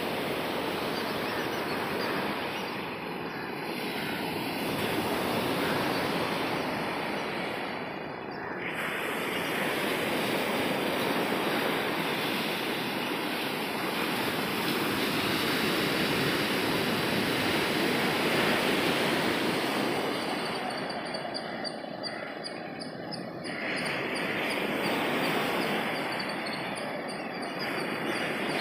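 Sea surf breaking on a sandy beach: a continuous rush of waves that swells and eases every few seconds.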